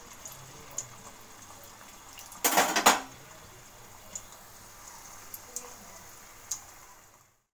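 Hot oil sizzling faintly with small pops around a stuffed dough parcel deep-frying in a kadai. About two and a half seconds in comes a brief clatter of metal kitchenware, the loudest sound here.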